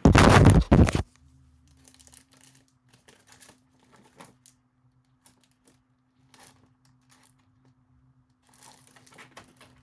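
Craft supplies being rummaged through: a loud crinkling, tearing-like rustle for about a second at the start, then faint rustles and light taps, with a short burst of rustling near the end. A low steady hum runs underneath.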